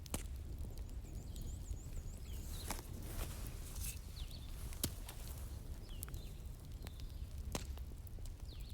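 Wood fire in a fireplace crackling, with sharp pops every second or so over a steady low rumble. Faint high chirps sound now and then.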